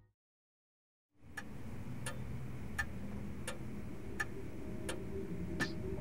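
Steady, evenly spaced ticking, about one and a half ticks a second, like a clock, over a low steady hum. It starts about a second in, after a moment of silence.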